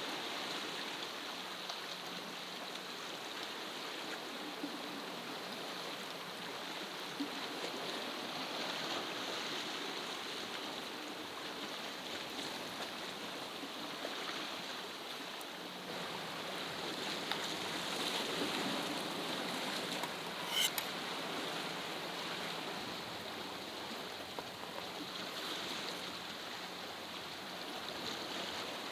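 Sea waves washing steadily against a rocky shore, with one sharp click about twenty seconds in.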